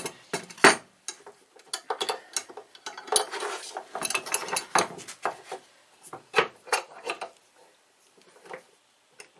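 Metal blocks and a metal clamp being handled and set on a wooden workbench: a quick run of clinks, knocks and scrapes for about seven seconds, then only a few faint taps near the end.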